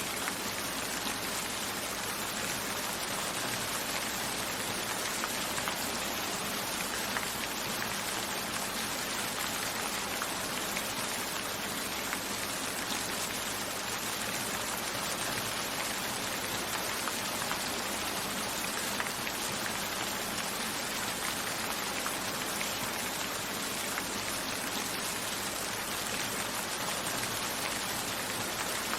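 Steady rain falling, an even hiss of many small drops at a constant level.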